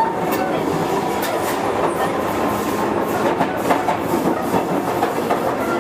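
Running noise heard inside a Sotetsu 7000 series motor car with a Hitachi GTO-VVVF inverter, travelling between stations: steady wheel-on-rail rolling noise with repeated clicks over the rail joints and a faint steady high tone.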